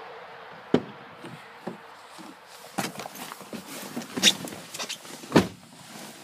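Handling noise: a string of sharp knocks and clicks, four of them louder, as a handheld phone is moved around inside a pickup truck's cab, over a steady hiss.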